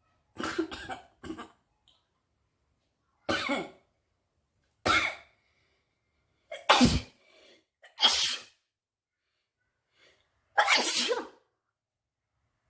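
A person sneezing again and again, the sneezes brought on by tickling the nose with grass: a quick cluster of short bursts at the start, then about five separate sneezes one to three seconds apart.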